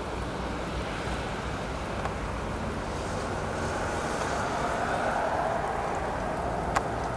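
Steady rush of passing road traffic, with one vehicle swelling louder and fading about four to six seconds in, and a single sharp click near the end.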